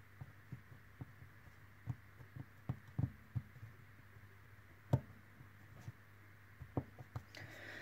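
Small, irregular clicks and taps of needle-nose pliers and thin craft wire being pressed into the slots of a wooden template, the sharpest tap a little before the halfway point, over a faint steady hum.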